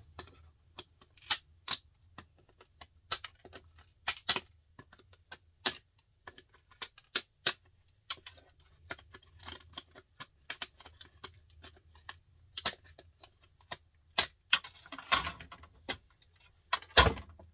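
Irregular sharp clicks and clacks of small plastic and metal printer parts being handled and pried apart, with a longer scraping clatter near the end.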